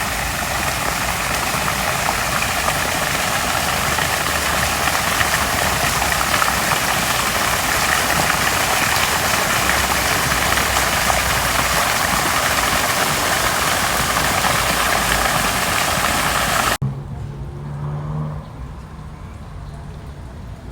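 Fountain water splashing and falling in a steady, loud rush. About 17 seconds in it cuts off suddenly to a much quieter background with a low hum.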